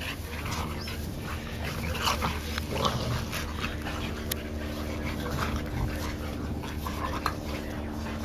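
Three young Olde Boston Bulldogges play-wrestling, making short, irregular dog noises, over a steady low hum.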